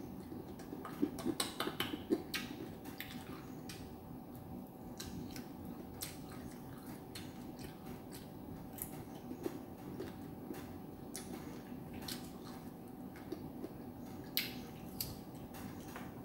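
Fruit skin being peeled by hand and the fruit being eaten: scattered small clicks and crackles, with clusters about a second in and again near the end, over a steady low hum.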